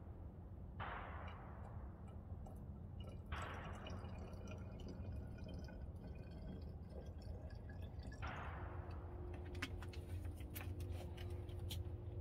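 Liquid poured from a plastic jug into a small bottle in three separate pours, each starting suddenly and trailing off, with a few small clicks and gurgles near the end, over a steady low rumble.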